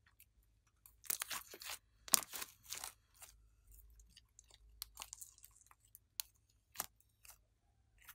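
Clear glitter slime with sprinkles being squeezed and stretched by hand, crackling and popping in dense clusters in the first few seconds, then giving single sharp clicks and pops as it is pulled and pressed down.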